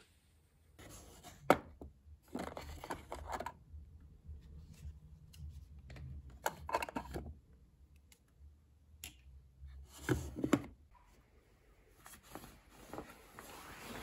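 Irregular handling sounds of someone getting ready: rustling and rubbing of things being moved, with a few sharp clicks, the loudest about a second and a half in and another about ten seconds in.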